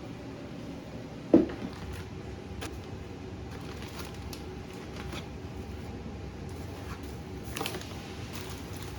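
Household handling sounds while cabinets are being rearranged: one sharp knock about a second and a half in, a few light clicks, and a brief scrape near the end, over steady room noise.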